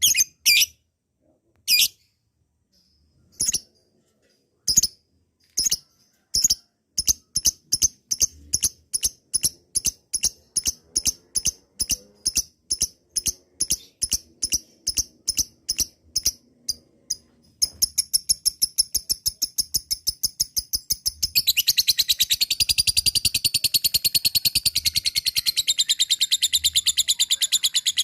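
Lovebird's long 'ngekek' song: sharp high chirps that start a second or more apart and speed up steadily, then about 21 seconds in run together into a fast, unbroken rattling chatter for the last six seconds or so.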